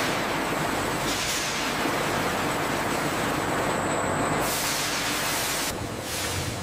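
Steady rushing, hissing noise of water and wet fibre pulp gushing through and spraying from pipework, with a low machine rumble under it. The hiss surges about a second in and again after four seconds, then eases near the end.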